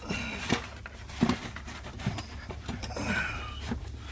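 Old plastic glove compartment being worked loose and pulled out of the dashboard: a series of knocks, clicks and scrapes, with a short squeak about three seconds in.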